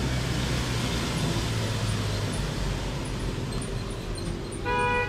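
Steady rumble of road traffic. Near the end comes a brief, steady-pitched tone, the loudest moment.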